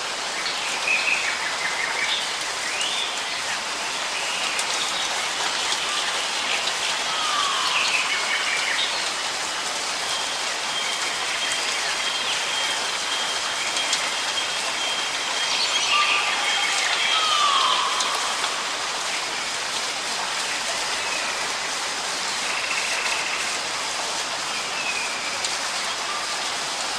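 Steady rain falling, with birds calling now and then in short chirps that slide downward in pitch. A thin, high, steady tone is held for several seconds in the middle.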